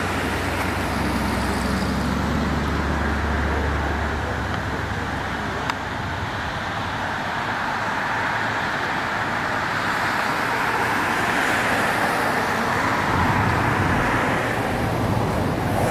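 Road traffic on a bridge: a steady rush of tyre and road noise, with a vehicle's engine humming low for the first few seconds and another vehicle swelling past later on.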